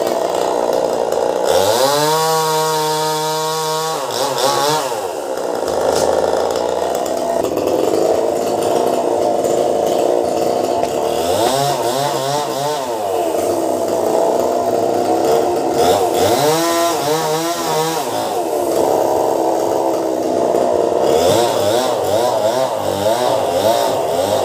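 Two-stroke chainsaw running, revved up and back down four times, with the first rev held high for about two seconds, and idling between revs.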